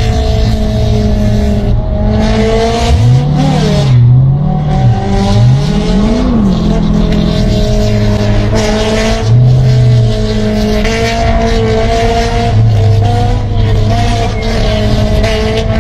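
Sports car engine running hard at high revs, heard from inside the cabin, holding a steady pitch. Its pitch dips and rises a few times between about three and six seconds in, and again briefly near ten seconds, as the car changes speed.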